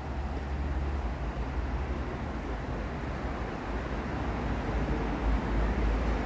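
Street traffic noise: vehicles running by with a steady rush and a low rumble, growing a little louder toward the end.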